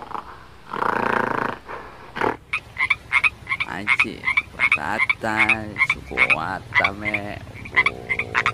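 A frog calling: a rapid run of short croaking chirps, several a second, with a few longer buzzing calls among them. This follows a second-long breathy rush of noise near the start.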